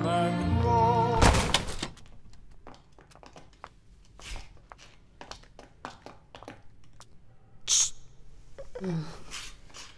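Music with singing cuts off about a second and a half in. Then come irregular clicking footsteps of high heels on a hard polished floor, with a short hiss near eight seconds and a brief falling voice sound about a second later.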